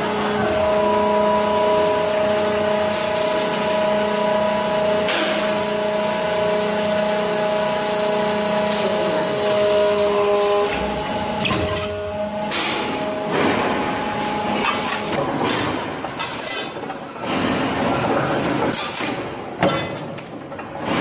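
Hydraulic press running: a steady whine made of several held tones for about the first ten seconds as the ram comes down on the pan-forming die. It then gives way to louder, noisier clatter with scattered metal knocks.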